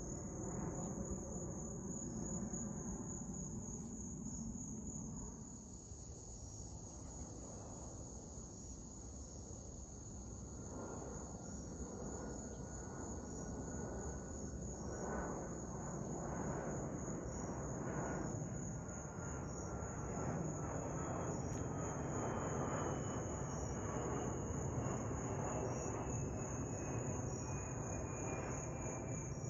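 Twin-engine jet airliner flying overhead: a broad engine rumble that swells and eases, with a faint whine slowly falling in pitch in the second half. It sounds over a steady, high-pitched, pulsing chorus of insects.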